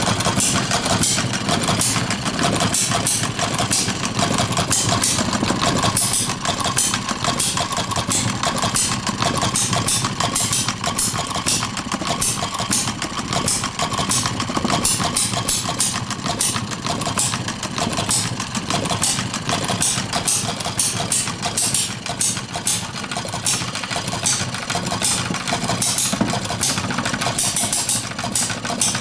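Hired-Man scale hit-and-miss engine running without a muffler, its firing strokes sharp and unmuffled and coming at uneven intervals between coasting strokes.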